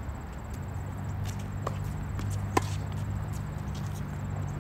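A tennis ball bouncing on a hard court: a lighter pock and then one sharp, louder pock about two and a half seconds in, with a few faint taps around them. A steady low hum runs underneath.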